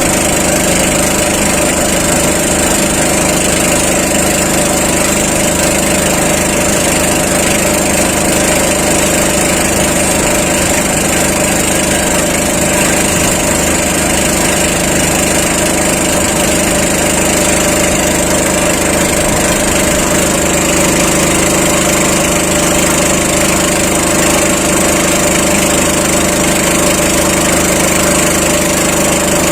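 A small engine running steadily at an even speed, with no change in pitch or loudness.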